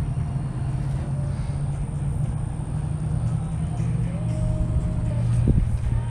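A steady low motor drone, with a short click about five and a half seconds in.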